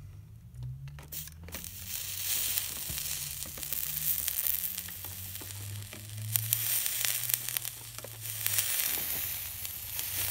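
Hot soldering iron melting solder along a copper-foiled stained glass seam, the flux sizzling and crackling in stretches as the solder flows.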